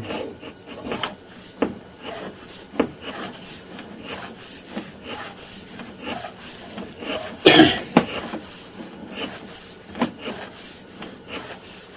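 Sewer inspection camera's push cable rubbing and scraping as it is fed by hand into a drain cleanout, with scattered clicks and one louder scrape about seven and a half seconds in.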